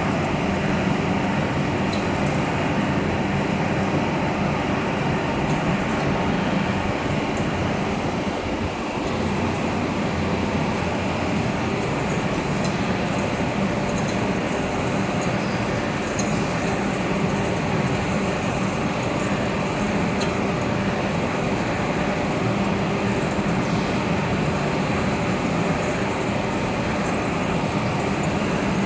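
Vertical turning lathe running with a steady mechanical hum and drone.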